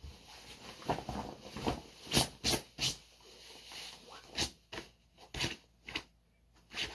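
A hand rubbing and brushing the wet sleeve of a softshell jacket, checking whether the water has soaked in: a series of short, irregular swishes of fabric.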